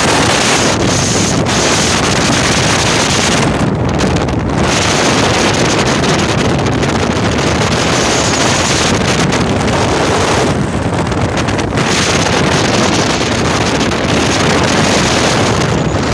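Loud, steady wind buffeting the microphone on a Ranger bass boat running at speed, with the rush of water and the outboard motor under it. The rush eases for a moment about four seconds in and again around eleven seconds.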